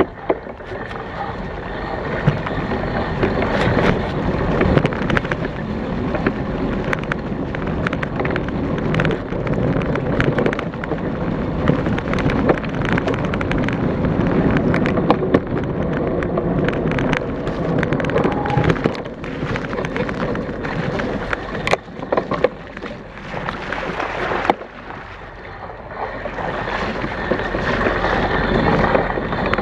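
Trek Elite 8.6 mountain bike ridden along a leaf-strewn dirt trail, heard from a handlebar-mounted GoPro: wind rushing over the microphone and tyres rolling over leaves and dirt, with frequent rattles and knocks from the bike over bumps. The noise drops for a couple of seconds about three-quarters of the way through, then rises again.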